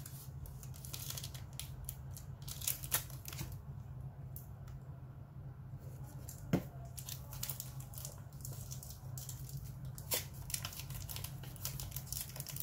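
Cardboard watch box being handled and opened by hand: scratchy rustling and tearing of packaging in scattered spells, quieter for a couple of seconds in the middle, with a sharp tap about six and a half seconds in. A low steady hum lies underneath.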